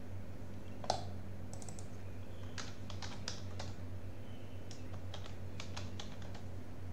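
Typing on a computer keyboard: a scatter of short key clicks, with one louder click about a second in, over a steady low hum.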